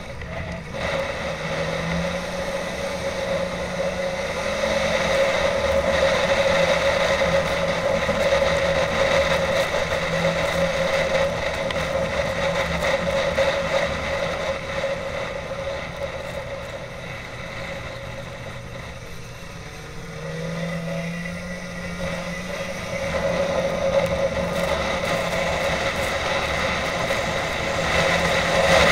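Snowmobile engine running under way, with a steady engine drone and wind rush. The engine eases off for a few seconds about two-thirds through, then speeds up again.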